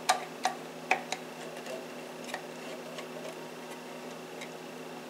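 A spoon clinking against the side of a measuring cup while sauce ingredients are stirred together. There are a few sharp clinks in the first second, then lighter taps a little under a second apart, over a steady low hum.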